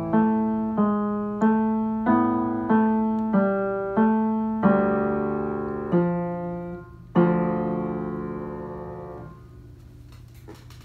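Upright piano playing the closing bars of a piece: a chord struck about every two-thirds of a second, then a longer held chord, and a final chord that rings for two seconds before it is released about nine seconds in.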